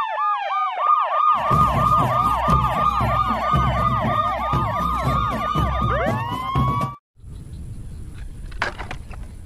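Several police sirens wailing together in a fast, repeating yelp, overlapped by slower falling wails, with a low rumble underneath from about a second and a half in. They cut off suddenly about seven seconds in, leaving faint background noise.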